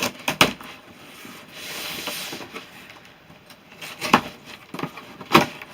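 Cardboard boxes and packaging being handled: a soft rustle and scraping, with a few sharp knocks and taps as boxes are set down, the loudest two near the end.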